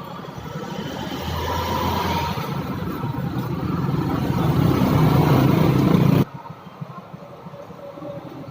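A motor vehicle engine running and growing steadily louder for about six seconds, then cutting off suddenly.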